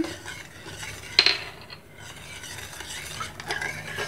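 Metal spoon stirring sugar syrup in a small stainless steel saucepan, scraping around the pan, with one sharp clink of spoon on metal about a second in.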